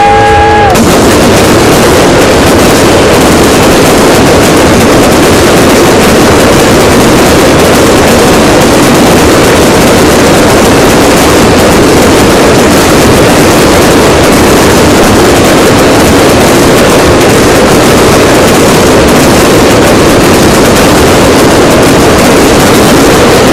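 Fireworks firing in a continuous barrage, so loud and dense that the bangs and crackling merge into one unbroken wall of noise with no single report standing out. A whistling tone cuts off under it less than a second in.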